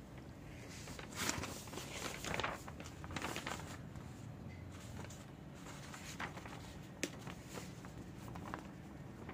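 A sheet of printer paper rustling as it is picked up and handled, in a few irregular bursts over the first few seconds, with a single sharp tap about seven seconds in.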